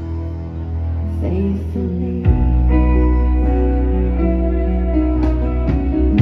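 Live band playing an instrumental passage: electric guitar and keyboards over bass and drums. A hit about two seconds in brings in a fuller, heavier low end.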